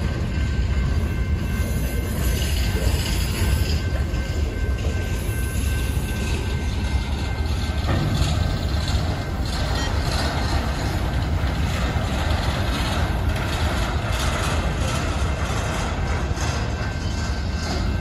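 Freight cars rolling steadily past: the continuous low rumble and clatter of steel wheels on the rails.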